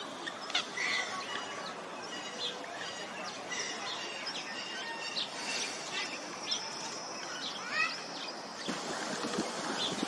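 Birdsong: many small birds chirping and whistling, with short high calls overlapping throughout and one longer thin whistle held for a couple of seconds just past the middle.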